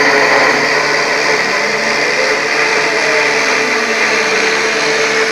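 Homemade CNC router running steadily as it cuts, a constant motor whine over dense noise.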